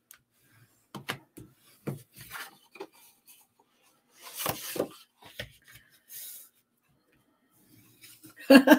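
Scored cardstock being worked by hand: a bone folder scraping along the score lines and the card rustling and crinkling as it is bent along its folds, in short scattered strokes.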